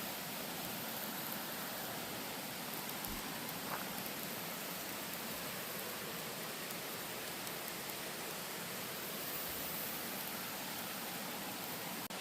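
Trout fillets with butter sizzling in a pan over a charcoal grill: a steady, even hiss with a couple of faint ticks.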